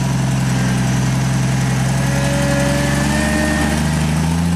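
4x4 rock crawler's engine running steadily at low revs while the vehicle holds its place on the rocks; the engine note rises slightly about four seconds in.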